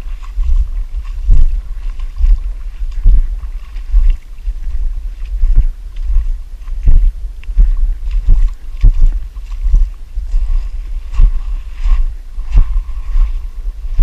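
Kayak paddled through shallow water: wind rumbling on the action camera's microphone, with a knock about every second and a half.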